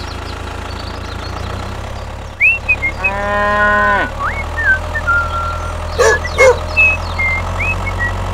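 Cow mooing: one long, even call about three seconds in, over a steady low engine hum, with short high chirps scattered through and two short louder calls a little after six seconds.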